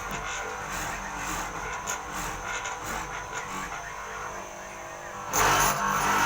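Mortising machine's motor running steadily, turning suddenly louder and harsher about five seconds in.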